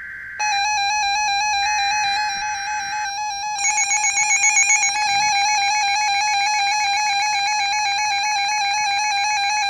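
Emergency Alert System header data bursts, a harsh digital screech heard twice in the first three seconds, over a warbling electronic alert tone that starts about half a second in. The tone becomes denser and buzzier after about three and a half seconds and then holds steady, signalling the start of a flood warning.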